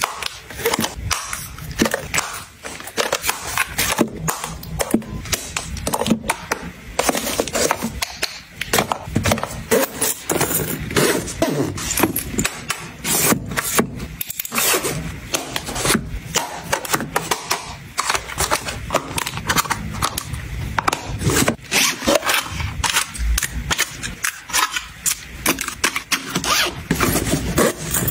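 Dense clicks, taps and scrapes of plastic cosmetic compacts and bottles being handled and packed into fabric makeup bags.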